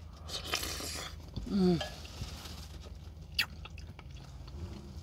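A person eating a spoonful of borscht close to the microphone: soft slurping and chewing. There is a short hummed "mm" about a second and a half in and a single sharp click a little past three seconds in.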